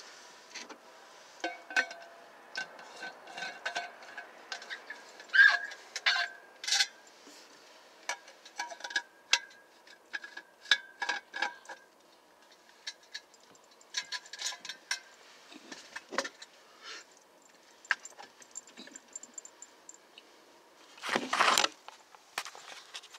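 Scattered light clicks and taps with no train passing, then a louder rustle and bump near the end as the camera is handled and moved.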